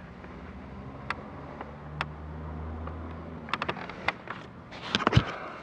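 Clicks and knocks of a plastic footwell cover panel and its screws being handled and fitted, the loudest knocks near the end. A low steady hum runs under the first three and a half seconds and stops abruptly.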